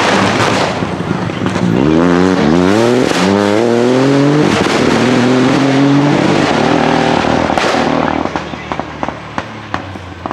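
Turbocharged rally car accelerating hard, its engine revving up through several quick upshifts and then holding high revs. About eight seconds in it fades, with a string of sharp pops and crackles from the exhaust.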